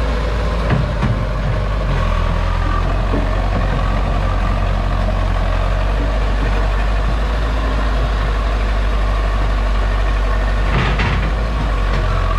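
Caterpillar 312C excavator's diesel engine idling steadily, a low drone. A short hiss breaks in about eleven seconds in.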